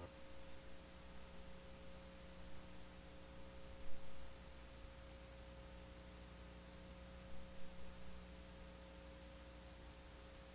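Faint steady hum with one clear held tone and a hiss underneath, broken by a few soft clicks, the loudest about four seconds in.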